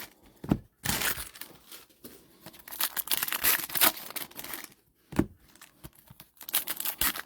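Foil wrappers of trading-card packs being torn open and crinkled, in irregular bursts of rustling, with a few soft knocks on the table.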